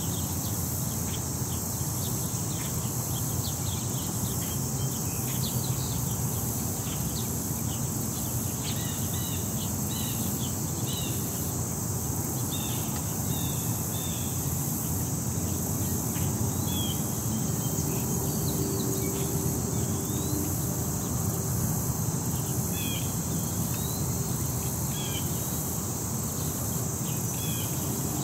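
City-park ambience: a steady high insect drone with birds chirping on and off, over a low, even rumble of city traffic.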